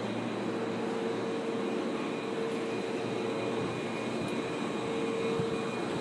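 Steady rumble heard inside a Tokyo Metro 10000 series train car, with a steady mid-pitched hum over the noise.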